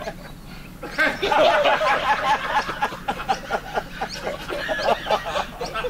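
People laughing and chuckling, breaking out about a second in.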